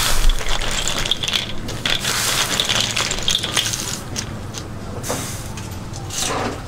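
Lala clams being scooped and shaken in a wire-mesh strainer over a wok of boiling water: shells clattering against one another and the mesh over the steady bubbling of the water.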